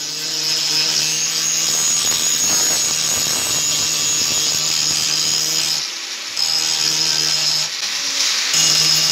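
Angle grinder running and grinding into the hardened, already tempered steel of an old chainsaw blade, a steady high whine over a low motor hum. It dips briefly twice, about six and eight seconds in.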